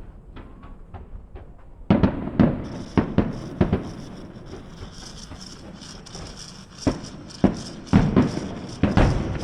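Aerial fireworks: a few faint pops, then from about two seconds in a string of loud, irregular booms over a continuous high crackling.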